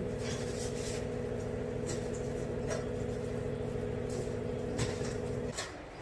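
A steady machine hum with a held tone, which cuts off abruptly about five and a half seconds in, under faint rustling and light knocks as onions and their papery skins are handled.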